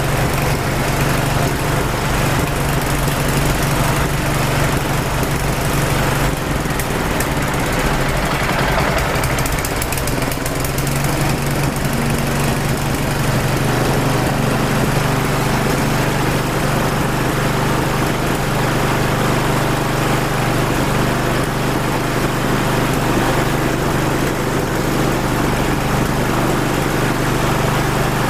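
Engine running steadily on what the uploader claims is a 99% water fuel mixture. Its low hum weakens for a few seconds, from about six to eleven seconds in, then returns.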